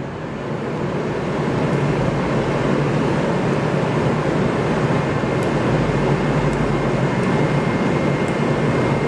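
Steady, even rushing noise of the kind made by room ventilation, with a few faint clicks.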